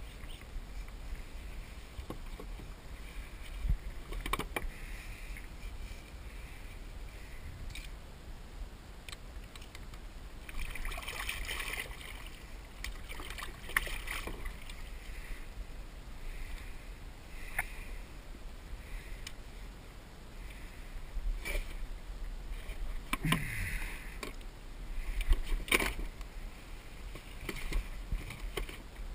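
A salmon splashing and thrashing at the surface beside a kayak as it is drawn in by hand on the leader, in several short bursts, with scattered knocks of the fish and gear against the kayak hull over a steady low rumble.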